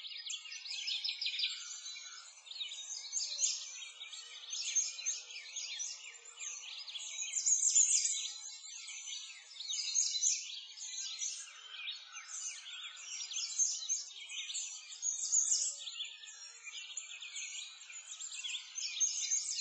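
A dense chorus of small birds chirping and singing, many short, high calls overlapping without a break.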